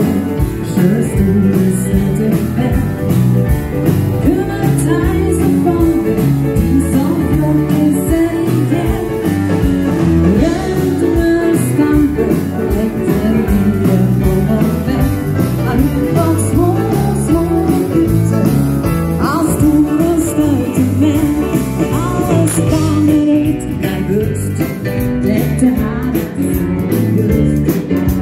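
Live dansband music amplified through a PA: a woman sings lead over drums, keyboards and electric guitar playing a steady dance beat.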